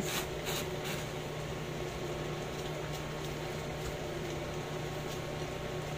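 A plastic bottle's screw cap twisted open, with three short clicks in the first second, over a steady low hum.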